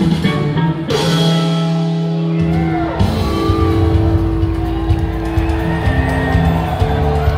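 Live rock band playing loudly in a concert hall, with long held guitar and keyboard notes over bass and drums. About a second in, the bass drops out, then comes back in a second and a half later.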